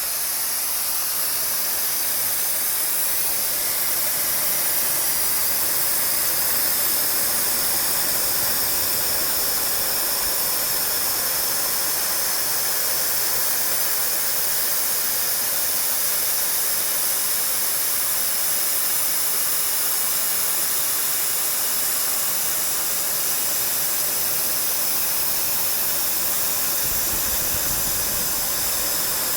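CNC machine running while machining a diesel engine piston: a steady hiss, strongest in the high range, with a faint low rumble coming in near the end.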